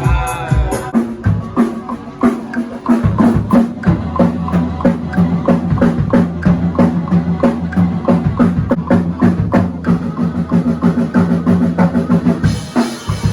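Music: a drum kit keeping a steady beat over sustained bass notes. Near the end the bass drops out and the drums carry on.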